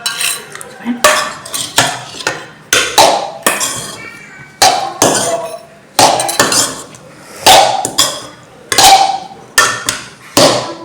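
Metal utensil clanking against metal cookware: a dozen or more sharp knocks with short ringing tails, irregularly one or two a second, as the noodles and masala are stirred and scooped.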